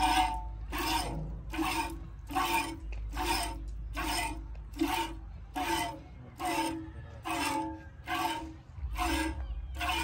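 Milk squirting by hand from a goat's teat into a stainless steel pail: hissing squirts in a steady rhythm, about two a second.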